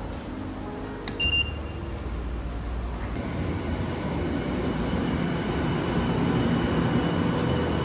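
An IC-card ticket gate gives one short high beep. A few seconds later a Tokyu Toyoko Line commuter train runs into the platform, its rumble building with a faint high squeal over it.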